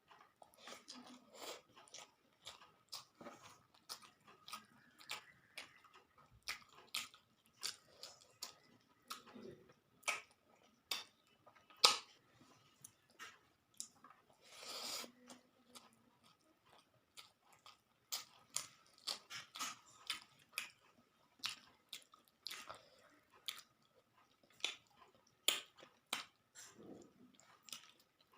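Close-up chewing of rice and crisp fried fish, with irregular sharp mouth clicks and smacks a few times a second; one longer wet mouth noise comes about halfway through.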